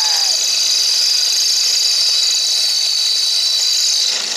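DeWalt cordless drill boring through aluminium angle stock, running steadily at high speed with a high-pitched whine, dipping briefly near the end.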